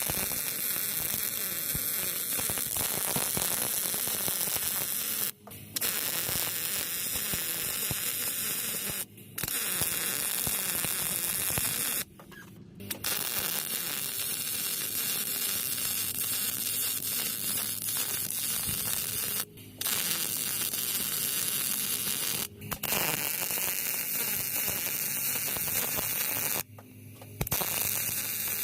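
Welding arc crackling and sizzling steadily while running beads on a Ford Ranger's frame, cutting out briefly about six times between runs.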